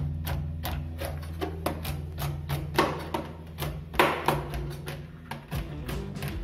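Chef's knife finely chopping almonds on a plastic cutting board: a rapid, even run of knocks at about three a second, the loudest about four seconds in, over background music.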